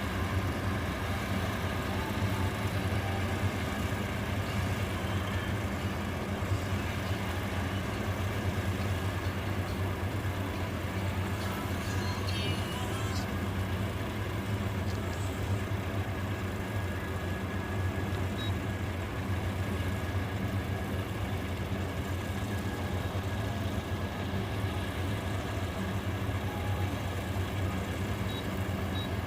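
Rice harvester's engine running steadily with a low hum.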